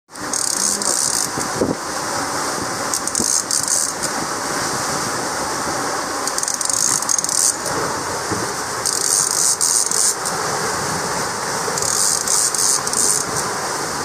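Bursts of rapid ratchet clicking from a Penn Senator trolling reel as a fish is cranked in, coming about every three seconds and each lasting about a second. Underneath is steady rushing wind and sea noise from a sailboat moving at speed.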